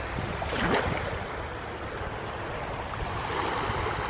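Calm, shallow sea at low tide, its small waves lapping with a steady wash of water.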